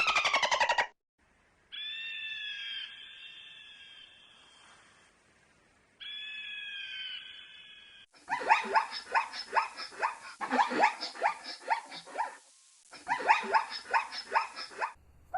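Animal calls in separate clips. The end of a fast pulsed call comes first, then two drawn-out whining calls that fade away. From about eight seconds in, a long series of rapid, repeated pulsed calls runs with one short break.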